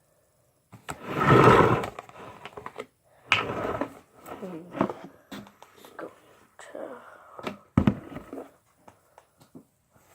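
Handling noise from plastic items such as a funnel and a bottle being set up: a loud rustling burst about a second in, then scattered rustles, clicks and knocks.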